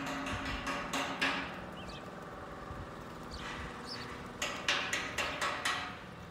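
Quick, sharp footsteps on asphalt, about four a second, in two runs with a quieter pause between them. Faint bird chirps sound in the pause.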